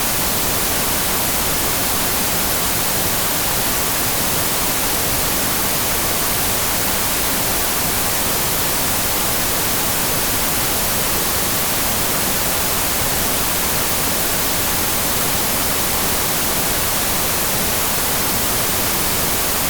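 Analog television static with no signal: a steady, even hiss that does not change.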